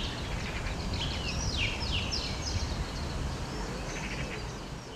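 Small birds singing: a run of quick downward-sweeping chirps and whistles, with a few more chirps near the end, over a steady low hum of outdoor background noise.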